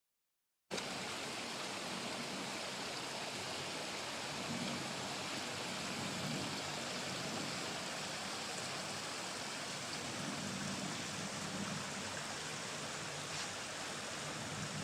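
Dead silence, then under a second in a steady, even rushing noise starts abruptly and holds, with a few faint ticks.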